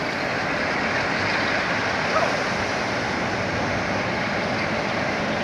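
Class 47 diesel locomotive hauling a ballast train past at close range: a steady rushing noise of the locomotive and its wheels on the rails.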